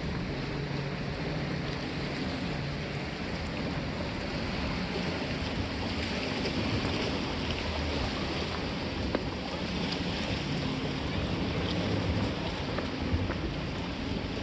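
Steady wash of sea and wind along a rock breakwater, with a faint low hum underneath.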